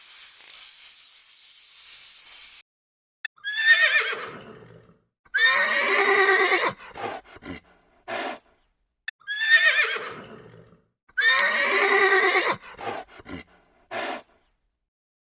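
A horse whinnying: a call that falls in pitch, then a longer whinny followed by a few short sounds, the same sequence heard twice. Before it, a high hissing jingle cuts off about two and a half seconds in.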